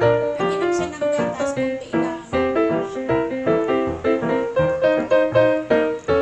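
Background music: a keyboard melody of quick, evenly struck notes over a low bass line.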